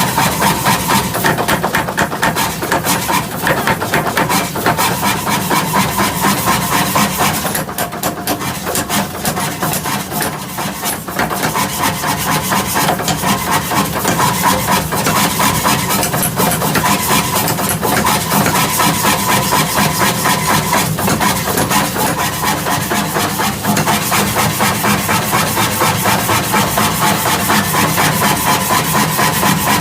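Mechanical power hammer running steadily in a forge shop, a fast, even rhythm of blows with a constant machine hum underneath.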